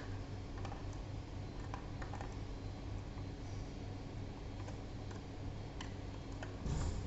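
Scattered light clicks and taps, about nine over a few seconds, from small tools and plastic parts being handled while the XR Elite headset is taken apart, over a steady low hum.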